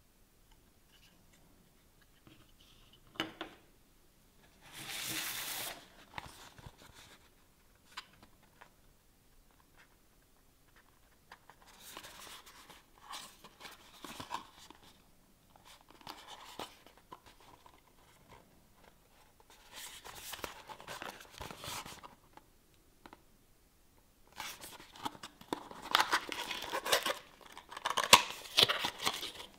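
Packaging being opened and handled: a sharp click, a short tearing sound, then on-and-off rustling and crinkling, densest and loudest near the end.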